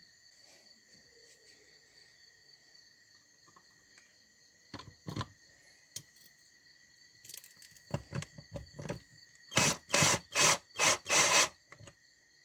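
Hands working small metal parts on a motorcycle clutch basket. A few scattered clicks come first, then near the end about five short, loud rasping strokes as threadlocked screws are fitted in. A faint steady high-pitched tone sits under it all.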